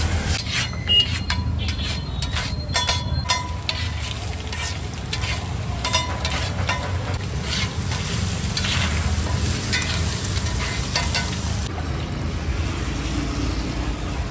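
Eggs sizzling on a hot griddle while a metal spatula stirs and clinks against it in quick, irregular strokes, busiest in the first few seconds and again in the middle. A steady low rumble runs underneath.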